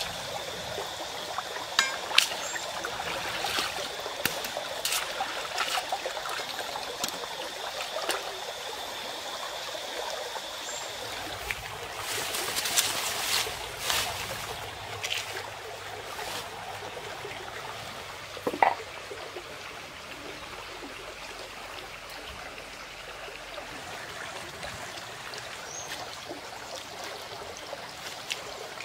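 Shallow stream running and trickling over stones, with splashing as hands rinse food in the water at the start. A rustle of leaves being handled about halfway through, and a few sharp clicks.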